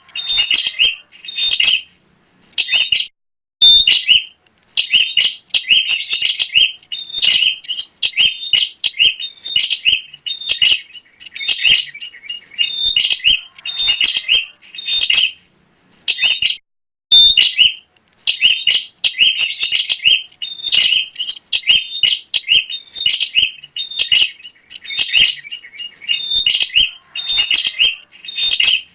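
Prenjak (prinia) singing vigorously: rapid strings of sharp, high chirps in bursts, with brief pauses between them.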